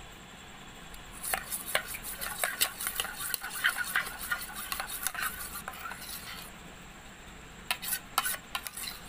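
Metal spoon stirring a wet glue-and-activator slime mixture in a stainless steel bowl, clinking and scraping against the bowl in quick irregular strokes. The stirring pauses about six and a half seconds in, then a few more clinks follow.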